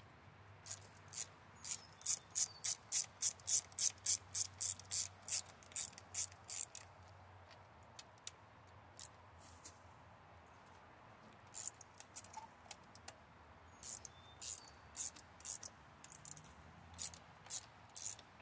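Hand ratchet clicking in runs of quick, regular strokes, about three or four clicks a second, as it works on the carburetor's hold-down nuts. A pause of a few seconds comes midway, then the clicking starts again.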